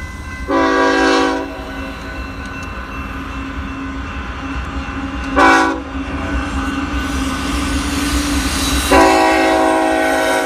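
Diesel freight locomotive's air horn sounding for a grade crossing as the train approaches: a long blast, a short one, then another long blast still sounding at the end, the tail of the standard crossing warning.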